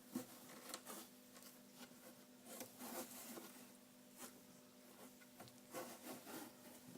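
Faint, irregular rustling and light scratching from young sphynx kittens shuffling about, over a low steady hum.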